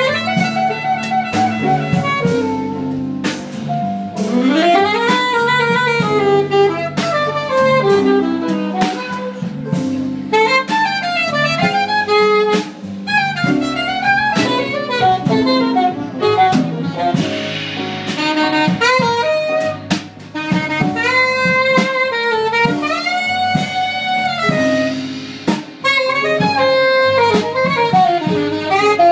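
Live jazz: an alto saxophone plays a fast improvised solo of quick runs up and down, with bent and sliding notes, over double bass and a drum kit with cymbals.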